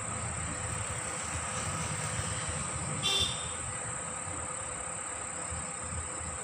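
Insects chirring in a steady high-pitched drone over a low rumble, with one short pitched call about three seconds in.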